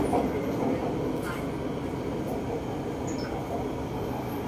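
Inside an MRT Purple Line metro train on its elevated track: the steady running rumble of the car and its wheels on the rails, getting gradually quieter.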